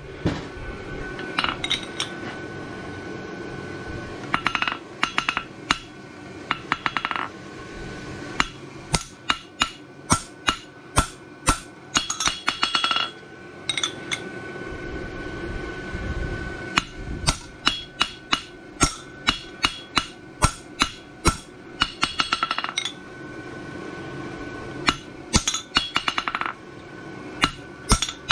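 A farrier's hammer striking a hot steel bar shoe on the anvil, about one blow a second, each with a clear metallic ring, broken by several quick runs of light taps. A steady low rush runs underneath.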